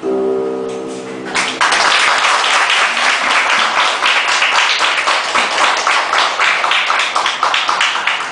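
The duo's last chord of harmonica and harp rings briefly, then audience applause breaks out about a second and a half in and carries on, the loudest sound.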